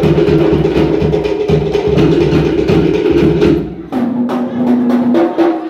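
Cook Islands drum ensemble: wooden slit-log drums beaten in fast, ringing rolls over a pulsing bass drum. Just before four seconds in, the drumming breaks off briefly and restarts in a new pattern without the deep beat, with another short break near the end.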